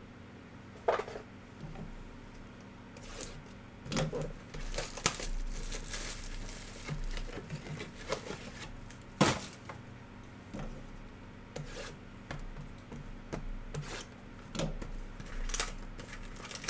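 Hands opening a cardboard trading-card hobby box and sliding out and handling a mini box: irregular scraping, tapping and crinkling of the box and its wrapping. There are sharper knocks about a second in and about nine seconds in.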